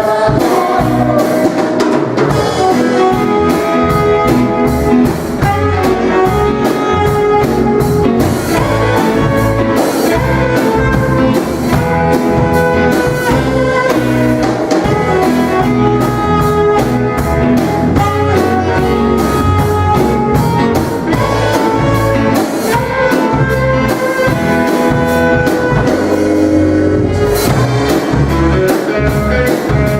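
Live rock band playing an instrumental passage: drum kit keeping a steady beat under sustained instrumental melody lines, with no singing.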